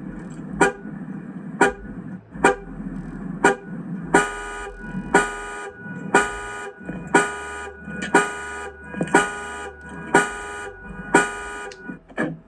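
2024 Chevrolet Silverado LT's horn sounding in its panic-alarm pattern, about one honk a second. The first few honks are short and thin; from about four seconds in they are fuller and louder. The honking stops about a second before the end.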